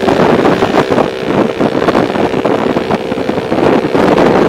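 Small underbone motorcycle engine running at a steady speed while riding, with wind buffeting the microphone.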